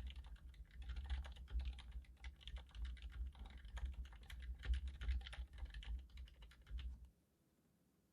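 Fast continuous typing on an iQUNIX F96 mechanical keyboard fitted with silent red linear switches, keystrokes coming in quick irregular runs, stopping abruptly about seven seconds in.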